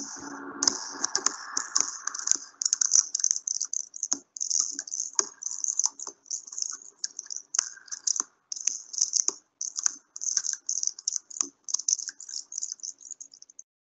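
Rapid, irregular dry rattling with sharp clicks, over a faint steady hum.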